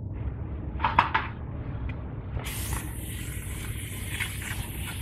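Aerosol brake cleaner spraying onto a new brake rotor to strip the oil it was shipped with. A short burst comes about a second in, then a steady hiss from about halfway through.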